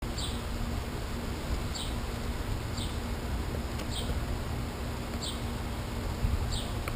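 A bird calling: a short chirp that falls in pitch, repeated six times about every second, over a steady low rumble.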